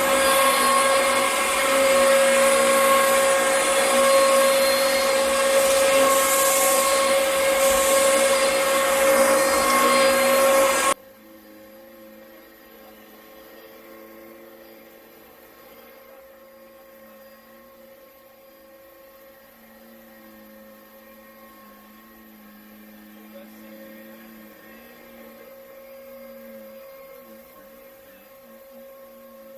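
Upright vacuum cleaner motor running at a steady high-pitched whine, which stops abruptly about eleven seconds in. A faint steady hum follows.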